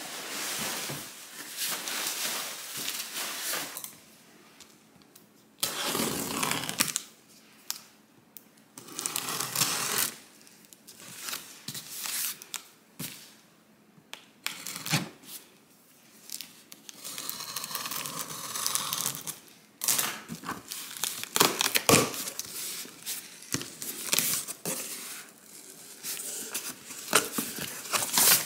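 Scissors slitting and tearing packing tape on a cardboard box, with cardboard flaps and packing material rustling as the box is pulled open. The sound comes in irregular bursts with quiet gaps and a few sharp knocks.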